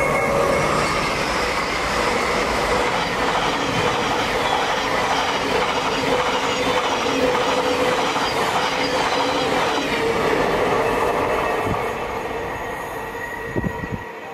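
Thameslink Class 700 electric multiple unit passing close at speed, its wheels running on the rails; the sound holds steady, then fades over the last few seconds as the train draws away.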